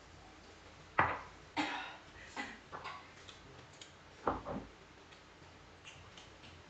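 A handful of short, sharp clicks and taps at irregular intervals, the loudest about a second in and again just past four seconds.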